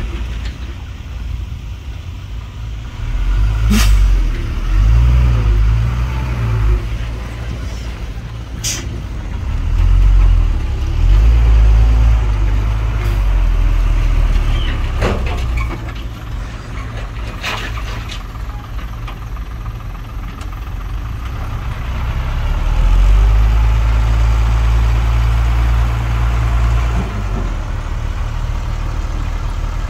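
Diesel engines of heavy earthmoving machines working, a deep steady drone that swells and eases several times with load. A few short, sharp clanks or hisses cut through it, about four, nine, fifteen and eighteen seconds in.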